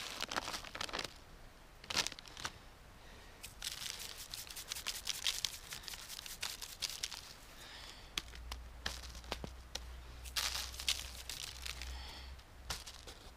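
Paper meat wrapping crinkling and rustling under hands, with a seasoning shaker shaken in quick strokes over the steak for a few seconds in the middle.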